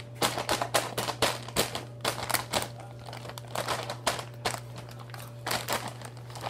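Plastic snack bag crinkling as it is handled: many quick crackles packed into the first two and a half seconds, then scattered ones.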